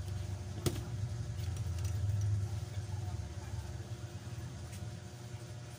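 A steady low hum, with one sharp click a little under a second in and a few faint ticks after it, as a thin metal pry tool works along the seam of a Samsung A10s's plastic back cover.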